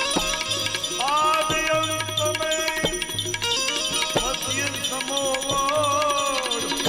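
Indian devotional bhajan music: tabla keeps a steady rhythm under a melody line that swells in twice, sliding and wavering in pitch.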